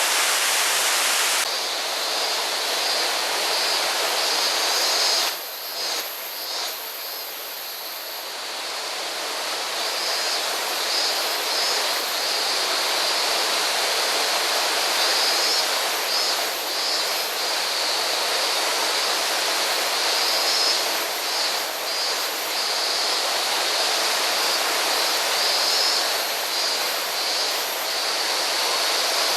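Rushing water of a mountain gorge stream and waterfall, a steady loud hiss with a brief dip about five seconds in.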